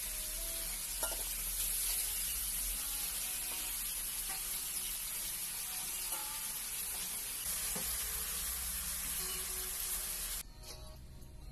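Chunks of eel frying in hot oil with garlic and ginger in a wok: a steady sizzling hiss, with a few light scrapes of a metal ladle stirring them. The sizzle cuts off suddenly near the end.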